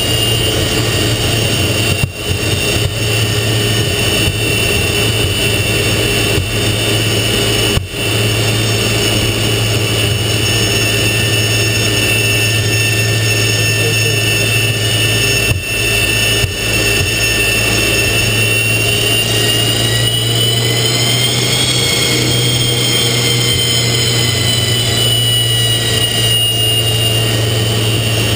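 Jet engine of a Douglas TA-4J Skyhawk, a Pratt & Whitney J52 turbojet, running steadily at taxi power, heard inside the closed cockpit as a constant high whine over a low hum. The whine rises slightly in pitch about twenty seconds in and then eases back.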